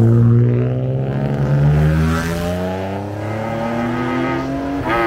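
Rally car engine accelerating hard, its note rising steadily for several seconds, then breaking suddenly near the end into a different pitch.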